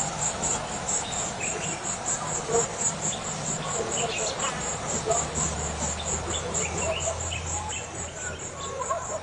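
Riverside ambience with a loud, high insect trill pulsing at about five beats a second, with scattered short chirps and calls over a soft background haze. A low hum comes in about midway for a few seconds.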